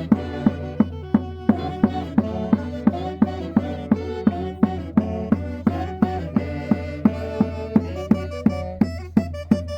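Andean festival band music from central Peru: sustained melody instruments over a low drone, with a drum striking steadily about twice a second.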